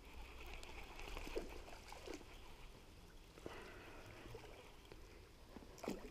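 Faint trickling water, with a few short soft sounds, the loudest near the end.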